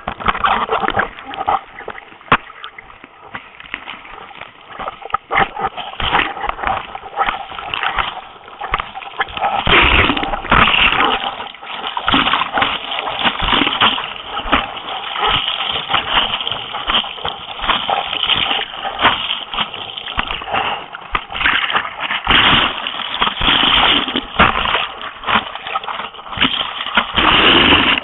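Water splashing and rushing over a surf racing board being paddled through the surf, heard close up at the board's nose, with many irregular splashes that grow louder and denser about ten seconds in.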